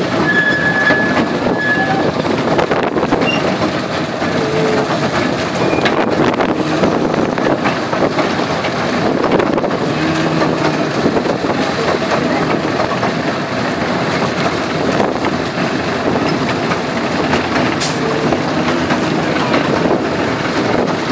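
A miniature railway train running along its track, heard from the open carriage just behind the locomotive: a steady rumble and clatter of wheels and running gear. A short high squeal comes about half a second in.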